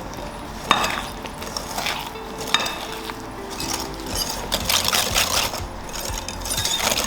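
A whisk stirring eggs and vanilla into a butter-and-sugar mixture in a mixing bowl, wet scraping with sharp clicks of the whisk against the bowl. The whisking gets faster and denser about four and a half seconds in.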